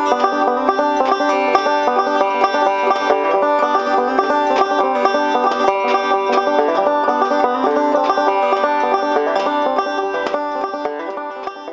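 Resonator banjo picked in a quick, continuous run of plucked notes, fading out near the end.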